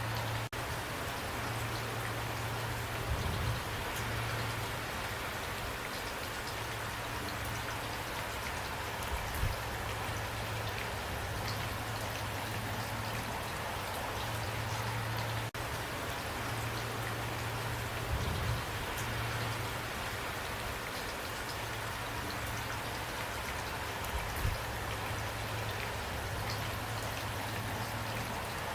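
Steady rain falling, an even hiss of drops with a low hum beneath it. A few short, soft low thumps stand out about four times.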